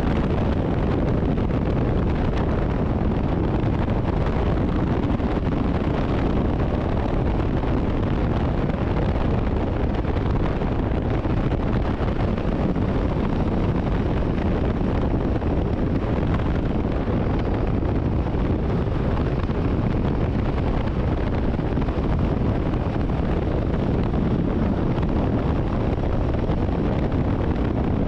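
Steady wind rush buffeting the microphone on a moving Royal Enfield Himalayan 450 motorcycle, with engine and road noise underneath.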